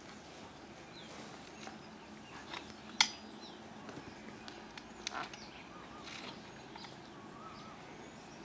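Coconut husk being pried off on a hand-operated spike dehusker: a few knocks and cracks of husk and metal, with one sharp crack about three seconds in. Birds chirp faintly in the background.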